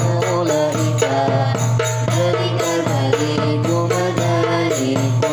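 A short chanted teaching song: a melody moving in short steps over a steady low drone and a regular percussion beat, repeating the Arabic demonstrative pronouns dhālika, dhālikumā, dhālikum, tilka, tilkumā, tilkum, ulā'ika.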